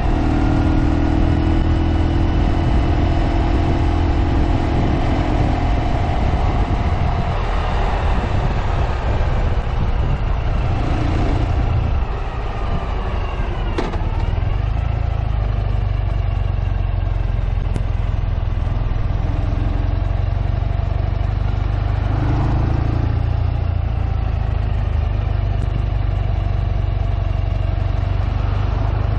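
Ural sidecar motorcycle's flat-twin engine running steadily under way, with wind and road noise. The sound drops briefly about twelve seconds in, and there is a single sharp click shortly after.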